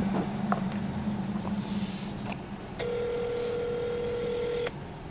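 Telephone ringback tone: one steady ring about two seconds long, starting near the middle, as an outgoing call rings on the other end. Before it, a low steady hum inside the car.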